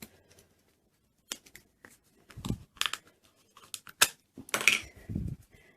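Handling of a plastic Play-Doh tub and its dough: a string of separate light clicks and scrapes, with one sharp click about four seconds in and a longer scraping, rustling sound just after it.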